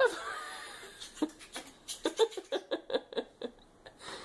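A high voice gives a short squeal that falls in pitch, then a run of short laughs, about four a second, fading near the end.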